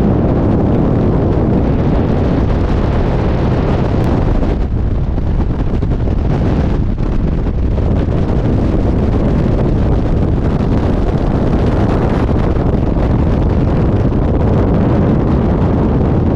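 Freefall wind blasting across a skydiver's camera microphone: a loud, steady, unbroken rush.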